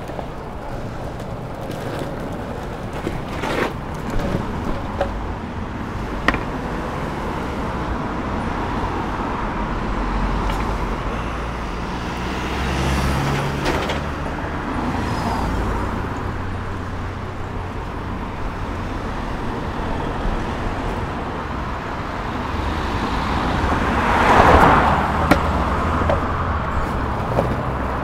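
Longboard wheels rolling over pavement, a steady rumble with a few sharp clicks, under city road traffic. The traffic swells loudest about 24 seconds in.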